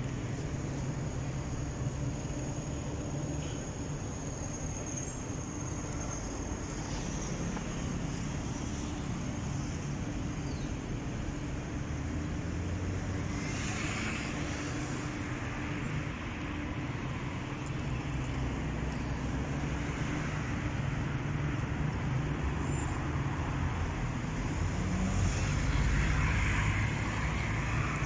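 Steady city road traffic: a continuous low rumble of cars, swelling louder as vehicles pass about halfway through and again near the end.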